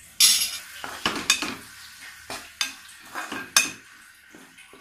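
Slotted stainless steel spatula stirring and scraping onion-tomato masala with freshly added spice powders around a pan, in about seven separate strokes that are loudest in the first second and a half, over a faint frying sizzle.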